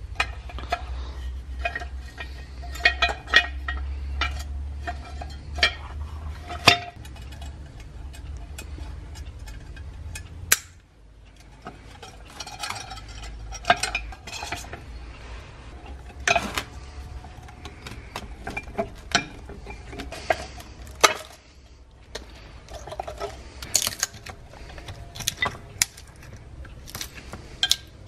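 Rusty cast-iron charcoal iron and its loose broken parts being handled on a workbench and worked with pliers: irregular metal clinks, scrapes and knocks, with a few sharper knocks.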